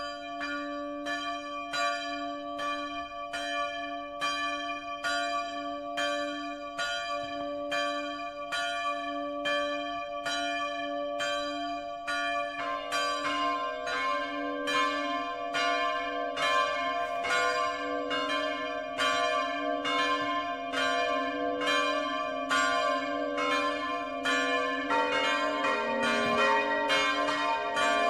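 Church tower bells ringing: a single bell strikes about twice a second, a second bell joins about twelve seconds in, and a lower third bell joins near the end, as the peal builds up.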